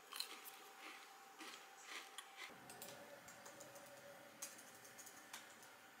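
Faint, sparse clicks and light rustles of butter cookies being picked out of paper cups in a cookie tin.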